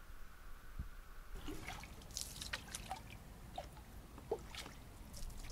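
Water dripping and plinking from paddling a canoe on still water: scattered small drips and plinks at no steady rhythm. They begin about a second and a half in, after a quieter stretch of faint hiss.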